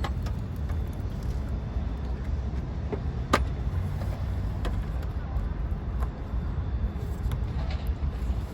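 Scattered clicks and knocks of a car's plastic engine air box being unclipped and handled, with one sharper click about three seconds in, over a steady low rumble.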